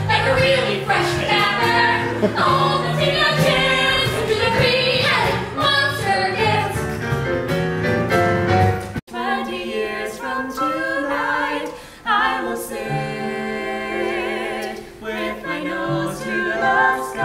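Several voices singing a show tune together over keyboard accompaniment. About nine seconds in the sound cuts off for an instant and jumps to a new passage, where the voices hold long notes.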